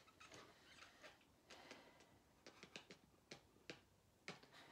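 Near silence: quiet room tone with a scattering of faint, short clicks and small handling noises.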